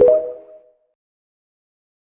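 A song's final note rings out and fades within the first second, then the sound cuts to dead silence.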